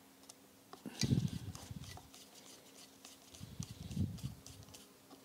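Faint handling sounds at a Weber 40 DCOE carburettor: small clicks and rubbing of a screwdriver and fingers on the aluminium body as the idle mixture adjustment screws are taken out. They come in two short bouts, about a second in and around the four-second mark.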